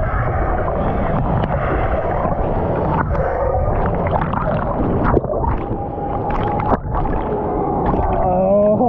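Churning water of a water-park river ride, a steady rush with scattered splashes, with a brief held tone about six seconds in and a rising tone near the end.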